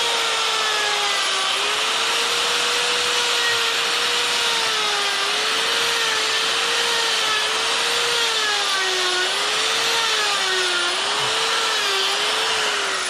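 Handheld rotary tool with a carving bit running at high speed while engraving initials into wood. It makes a steady whine whose pitch dips and recovers again and again as the bit bites into the wood.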